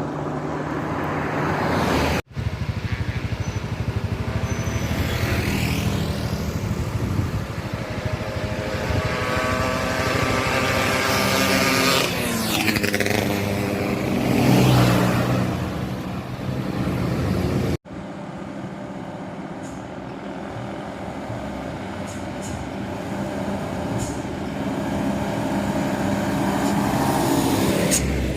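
Road traffic passing close by: engines and tyre noise of several vehicles going past one after another. The sound breaks off abruptly twice, about two seconds in and again about two-thirds of the way through.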